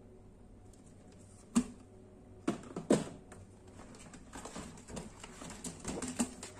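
Handling sounds of hard plastic and plastic packaging: a few sharp plastic clacks and knocks, then rustling and crinkling with small clicks as wrapped items are taken out of clear plastic storage drawers.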